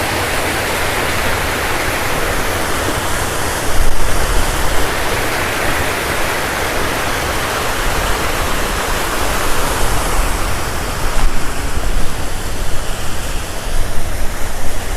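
Loud, steady rush of falling water from a waterfall swollen by the monsoon rains. Louder low rumbles come in about four seconds in and again near the end.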